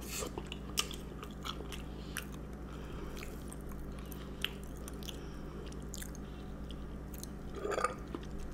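Close-miked chewing and biting of a chocolate chip cookie dipped in iced milk, with many small wet mouth clicks over a low steady hum. Near the end comes a short burp.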